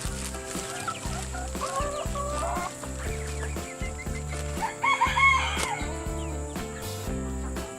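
Chickens calling, with a rooster crowing, in two stretches about 2 and 5 seconds in, over background music of steady low notes.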